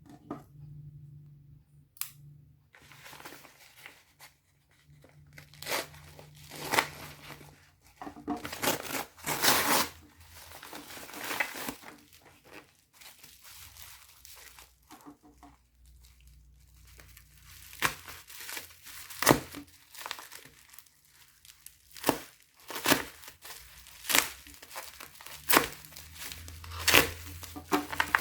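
Product packaging being handled and opened by hand: irregular crinkling and tearing rustles with sharp clicks and snaps, over a faint steady low hum.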